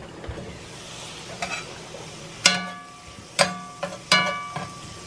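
Thin metal spatula stirring mushrooms and garlic in a cast iron skillet, with three ringing metal-on-metal clanks in the second half. Under them runs the sizzle of the mushrooms frying in sesame oil.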